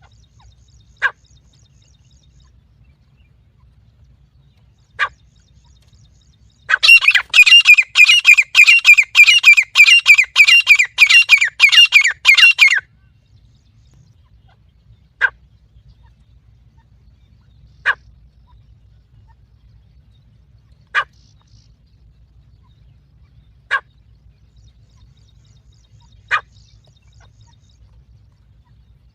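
Teetar (francolin) calls played as a lure to draw partridges: single sharp call notes every few seconds, and about a quarter of the way in a rapid run of about twenty loud notes lasting some six seconds.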